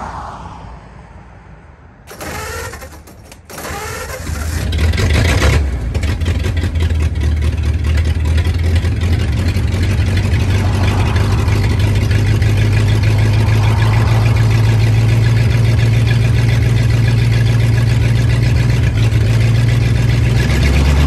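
A 1939 Ford 1.5-ton truck's flathead V8 is cranked by the starter about two seconds in. It catches about four seconds in, then runs steadily.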